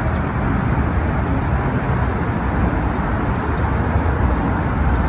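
Steady road traffic noise: a continuous low rumble of passing cars with no single event standing out.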